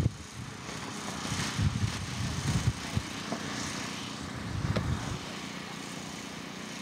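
Wind buffeting an outdoor microphone in irregular low gusts, which die down about five seconds in.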